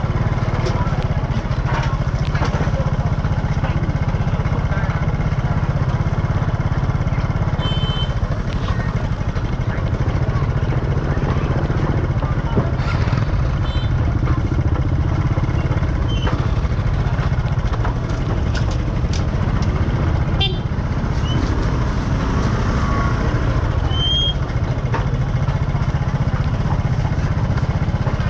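Street market ambience over a steady low rumble: motorbike engines running and passing, with faint background voices and scattered clicks and knocks.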